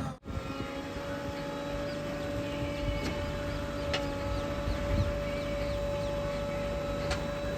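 Steady engine drone with a held, even hum running through it, broken by a brief dropout just after the start and a few faint clicks.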